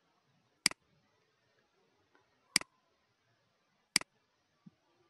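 Computer mouse button clicking: three sharp single clicks, spaced a second or more apart, with a faint fourth click near the end.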